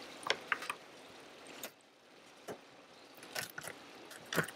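Plastic filter frames of a robotic pool cleaner being handled and set down: scattered light clicks and taps, the sharpest a little before the end, over a faint hiss.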